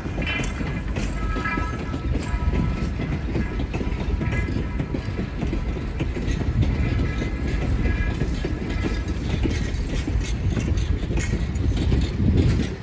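Passenger train coaches rolling past at low speed: a steady low rumble of wheels on the track, with scattered clicks as the wheels pass over rail joints.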